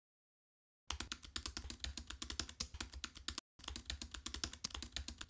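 Computer keyboard typing sound effect: rapid, irregular key clicks that go with on-screen text being typed out letter by letter. The clicks start about a second in, break off briefly past the middle, then resume and stop abruptly.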